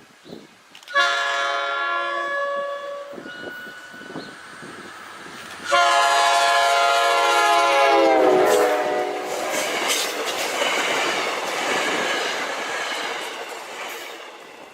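A locomotive air horn sounds two long blasts. The second drops in pitch near its end as the train passes, and the rumble of the passing train follows and fades away.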